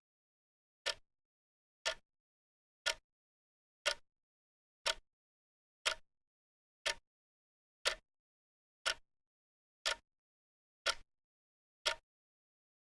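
Clock ticking, one sharp tick each second with silence between ticks.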